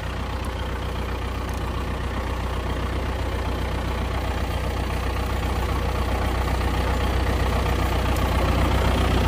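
John Deere 1640 tractor's diesel engine idling steadily, slowly getting louder.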